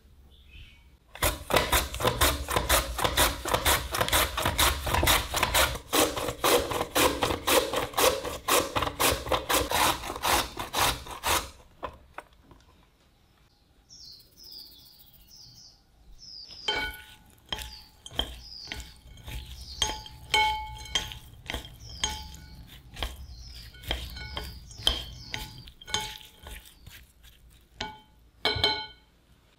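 Kitchen prep sounds: for about ten seconds, a fast, even run of strokes on the potatoes, then a pause, then a string of light clinks of utensils on dishes, each ringing briefly.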